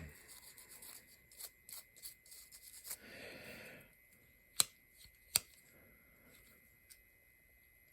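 Small handling sounds of objects being moved about on a table: faint rubbing and light clicks, then two sharp clicks a little under a second apart near the middle.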